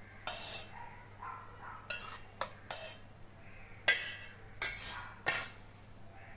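Metal cookware clinking and scraping: about seven short, sharp knocks as a pan of fried tempering is emptied into a steel bowl and set aside.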